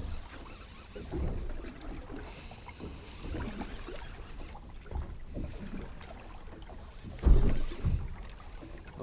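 Wind on the microphone and water against a small fishing boat's hull, an uneven low rumble, with a louder low thump about seven seconds in.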